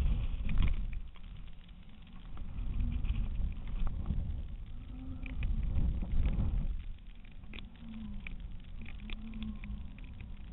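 Wind buffeting a GoPro camera mounted on a flying kite: a heavy, gusting low rumble that eases after about seven seconds, with scattered light ticks and a faint hum coming and going near the end.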